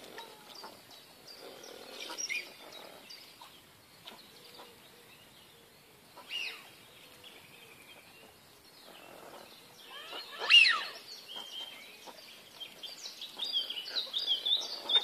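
A flock of ducks, among them Eurasian wigeon, calling on the water: scattered high, falling calls, quieter through the middle. One louder call comes about ten seconds in and a quick run of calls near the end.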